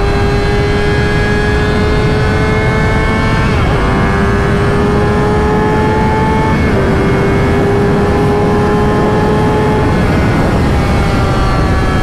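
2005 Kawasaki ZX-6R's inline-four engine at highway speed under a wind rush, its pitch climbing and then dropping briefly twice, about three and a half and nearly seven seconds in, as it shifts up, before holding steady.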